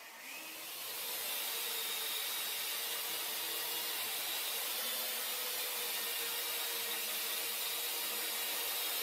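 Engine-thrust sound effect for an animated towing drone, a steady rushing hiss with a faint whine underneath. It swells over the first second or so, then holds level.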